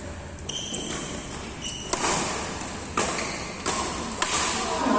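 Badminton rally: rackets striking the shuttlecock in a quick series of sharp cracks, less than a second apart, in a large indoor hall. There are short high squeaks in the first two seconds.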